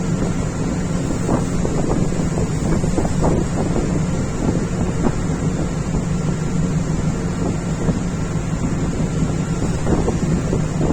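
Steady low drone of a boat's engine, with strong wind buffeting the microphone in irregular gusts as the vessel rocks in rough seas.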